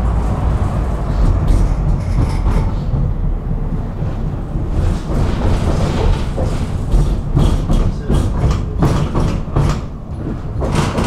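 Tram running along the track: a steady low rumble with frequent irregular knocks and rattles, thickening in the second half.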